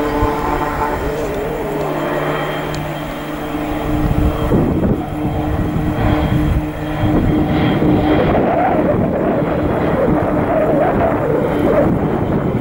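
Beechcraft King Air C90A's twin Pratt & Whitney PT6A turboprops running at power on the takeoff roll: a steady propeller and turbine drone with held tones. About four seconds in it becomes a louder, rougher rush.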